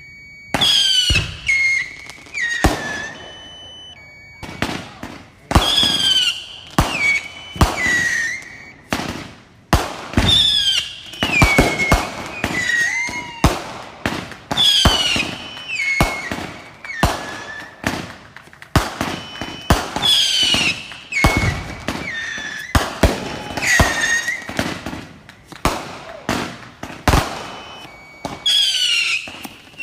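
Consumer fireworks going off: a rapid, irregular string of sharp bangs and pops, mixed with many high whistles that fall in pitch.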